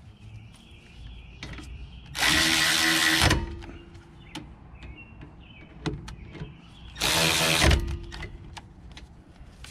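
Cordless electric ratchet run in two short bursts, about a second and then under a second, driving in the rear brake caliper bolts, with a motor whine over the ratcheting. Faint clicks of tool handling between the bursts.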